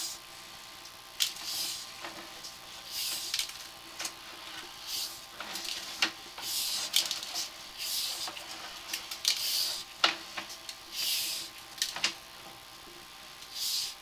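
Sewer inspection camera's push cable being fed by hand down the line: irregular short swishing strokes about once a second, with a few sharp clicks, over a faint steady electronic hum.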